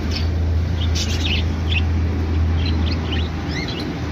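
Budgerigars chirping in short, scattered calls over a steady low hum.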